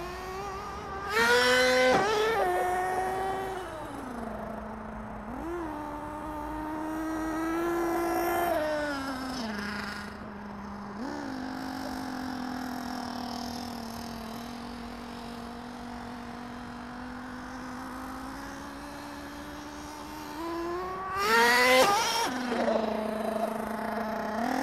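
Thunder Tiger ST1 radio-controlled truck's motor running, its pitch rising and falling as it is throttled, settling to a steady tone for long stretches. It revs up loudly twice, about a second in and again near the end.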